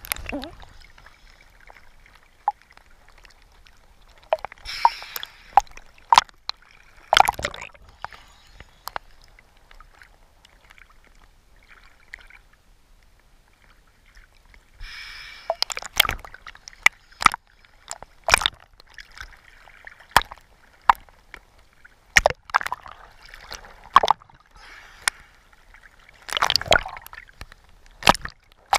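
Underwater sound picked up by a submerged camera: scattered sharp clicks and crackles, with a few short bursts of bubbling, gurgling water.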